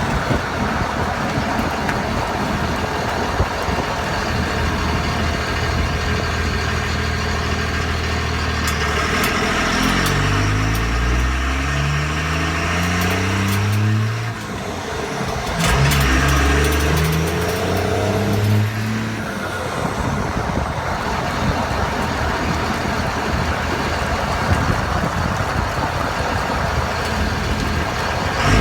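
2001 Ram 2500's 5.9-litre 24-valve Cummins diesel running while the truck drives, its pitch climbing twice, from about nine seconds in and again from about sixteen seconds in, with a short drop between as it goes up through the gears.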